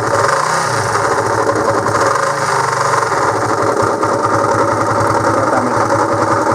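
Honda CB125JX single-cylinder four-stroke engine running steadily with an abnormal noise in it, which the owner suspects comes from around the crankshaft bearings after finding nothing wrong in the top end.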